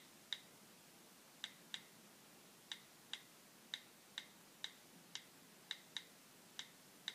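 Key clicks from an iPhone's on-screen keyboard as letters are typed one at a time: about fourteen short, sharp clicks, alike in tone, at an uneven pace of one to two a second.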